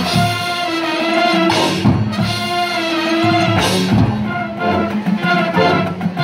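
High school marching band playing: brass holding sustained chords over mallet percussion, with two crashes about two and four seconds in.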